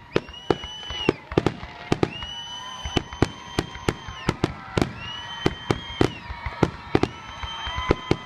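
Aerial fireworks display: a rapid, uneven barrage of sharp bangs, several a second. Over the bangs runs a series of high whistles, each held about a second before bending down in pitch.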